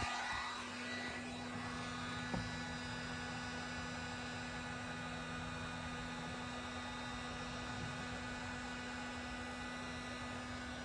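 A steady low electrical hum, with a faint click about two seconds in.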